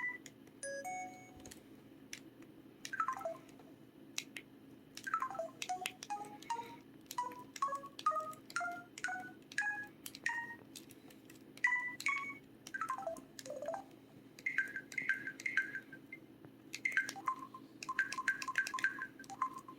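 LG-KC3500 mobile phone's built-in sound effects playing one after another: short electronic beeps and chirps, including a few downward-sweeping swoops, a run of tones stepping up in pitch, and clusters of quick repeated beeps, over a steady low hum.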